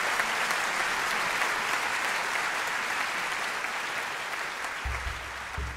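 Audience applauding, a dense steady clatter of many hands that eases slightly toward the end, with a couple of low thumps near the end.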